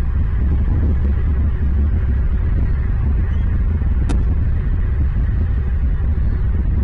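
A steady, loud low rumble with a noisy hiss above it, and one brief faint click about four seconds in.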